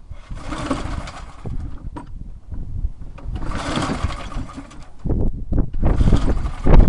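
Two pulls on the recoil starter cord of a 1985 Briggs & Stratton push-mower engine, each a short rasping whir as the engine turns over without firing, on a cold start with no primer. A heavier low rumble takes over in the last two seconds.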